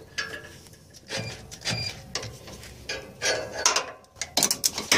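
Socket ratchet wrench clicking in several short bursts of ratcheting strokes as it works a lower exhaust manifold bolt loose.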